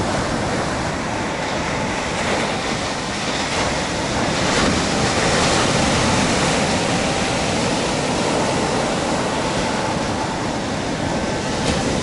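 Sea surf breaking and washing up a sandy beach: a continuous rushing wash of waves that swells louder for a few seconds around the middle as a wave breaks.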